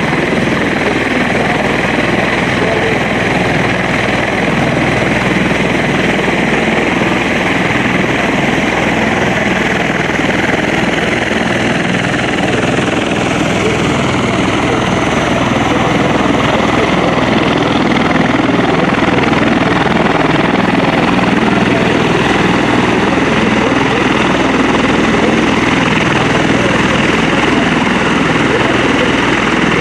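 Sukhoi Su-26 aerobatic plane's nine-cylinder radial engine and propeller running steadily as it flies manoeuvres overhead, a little louder about halfway through.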